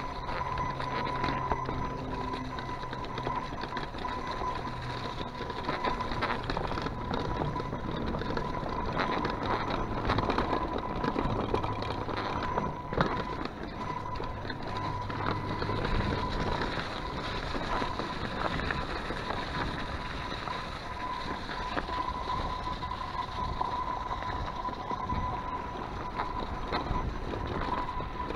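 Kona mountain bike rolling over a rough, frozen trail: steady tyre noise with frequent rattles and knocks as it jolts over bumps, and a thin steady whine throughout.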